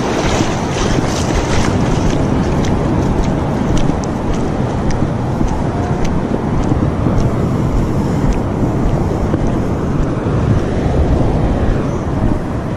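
Steady wind rumble on the action camera's microphone mixed with surf washing over the sand, with faint light ticks scattered through the first half.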